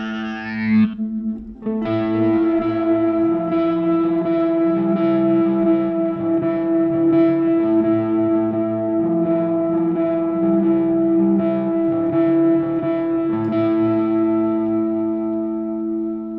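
Electric guitar played through the Guitar Rig 5 amp-simulator plugin in FL Studio: slow, sustained effected chords that change every second or two, with a brief break about a second and a half in.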